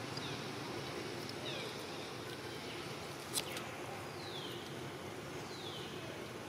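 Steady outdoor background hiss with a bird calling: three short falling whistled notes a second or two apart. One sharp click about halfway through.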